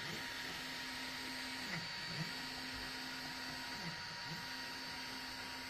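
EasyThreed K10 mini 3D printer running a print. Its stepper motors give off a steady hum that briefly dips and comes back up in pitch several times as the print head changes moves.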